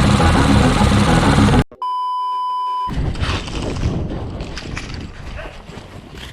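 A loud, dense mechanical rattle cuts off abruptly, followed by a single steady electronic beep of about a second, a pure tone near 1 kHz. Fainter outdoor sound with scattered light clicks follows it.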